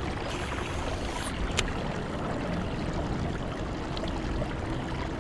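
Steady rushing outdoor background noise with no clear rhythm, broken by one sharp click about one and a half seconds in and a fainter one near the end.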